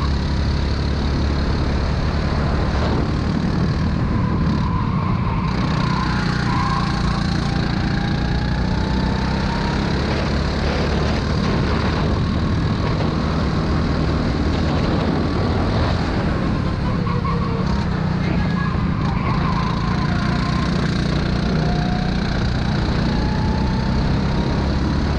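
Go-kart engine running at racing speed, its pitch gliding gently up and down through the corners, under heavy wind rush from driving on the open kart.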